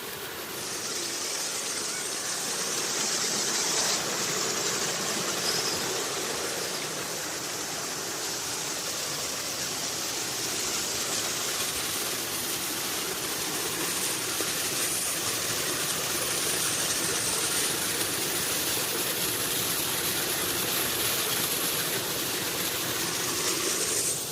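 Waterfall rushing: a steady noise of falling water that swells about half a second in.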